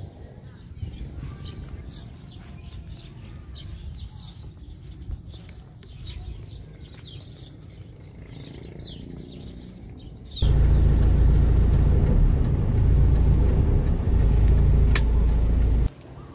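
Small birds chirping in short calls over a quiet outdoor background. About ten seconds in, a loud low rumbling noise takes over for about five seconds and cuts off suddenly.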